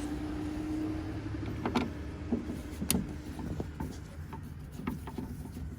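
Cordless drill/driver whirring steadily for about two and a half seconds as it backs out the screws holding a car door speaker, followed by scattered light clicks and taps.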